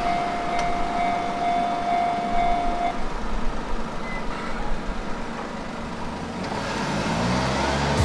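A small car driving slowly past toward the railway crossing, its engine note rising near the end as it pulls away. A steady high whine, left over from the train that has just passed, stops about three seconds in.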